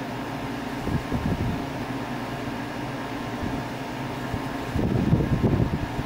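Honeywell 10,000 BTU portable air conditioner running on its default setting: a steady fan whir with faint steady tones in it. About five seconds in, a louder, uneven low rumble joins it.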